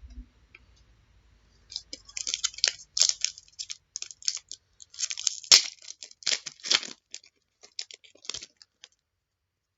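A trading card pack wrapper being torn open and crinkled, a dense run of short crackles and rips that starts about two seconds in and stops near the end.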